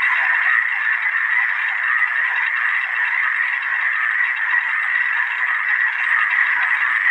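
A dense chorus of many frogs calling at once, an unbroken high-pitched croaking with no pauses.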